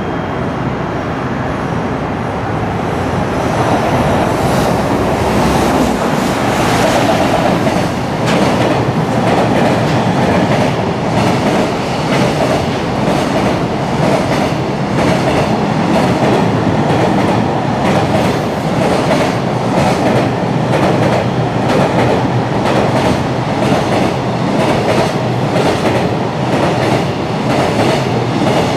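Long freight train passing at speed, a steady rumble with its wagon wheels clattering over the rail joints in a run of regular clicks. It grows louder over the first few seconds as it comes up.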